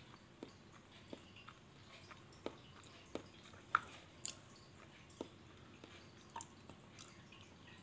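Faint, irregular taps and clicks, about a dozen, the loudest a little under four seconds in: fingertips tapping a smartphone's touchscreen and the phone being handled.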